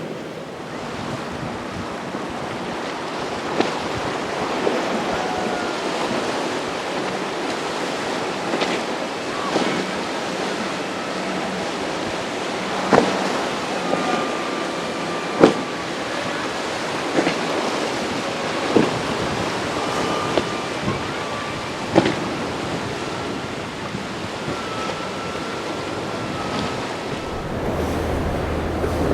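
Steady rush of surf and wind buffeting the microphone. Sharp knocks or slaps are scattered through it, with faint short whistle-like tones in the middle.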